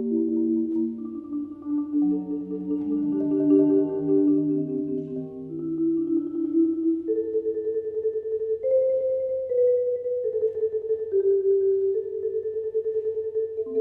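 Slow instrumental music: sustained chords whose notes flicker with a fast, shimmering pulse, the harmony shifting every second or two.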